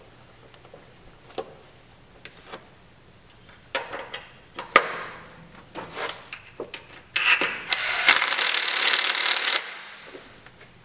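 Metal clicks and knocks of parts being handled at the crank end, then a cordless power driver runs for about two and a half seconds, starting and stopping sharply, running in the bolt and washer that hold the heated drive gear on the crankshaft.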